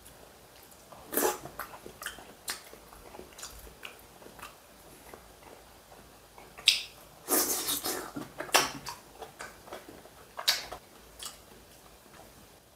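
A man eating: chewing and mouth smacking, with short, sharp clicks of chopsticks against a pan and plate. The loudest run of noises comes in the second half.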